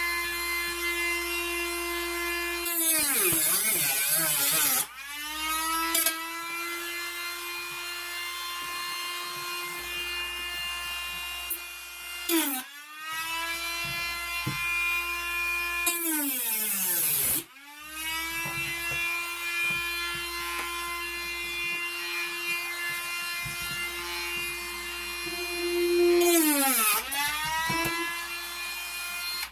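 Cordless Dremel rotary tool with a cutting disc running at high speed with a steady high whine. Three times its pitch sags and a harsh grinding hiss rises as the disc bites into the material, then it spins back up. It stops briefly about twelve seconds in.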